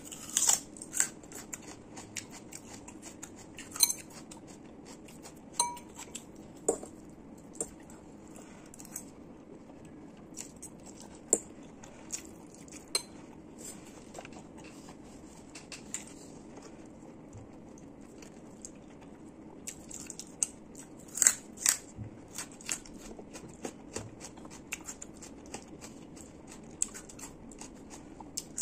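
Close-up eating sounds: a person biting and chewing crisp raw food such as a small shallot and green chili, with irregular sharp crunches between quieter gaps. The crunches are loudest about a second in and again around two-thirds of the way through, over a faint steady low hum.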